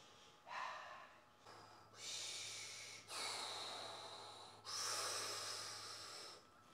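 A man breathing hard from the exertion of weighted pistol squats: four long, heavy breaths, each about a second and a half.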